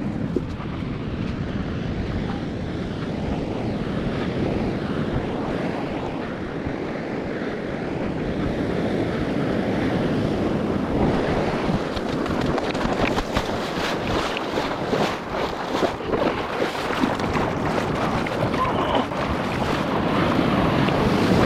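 Ocean surf and water washing around a camera held close to the water, with wind buffeting the microphone. From about halfway on, many short sharp splashes break over the steady wash.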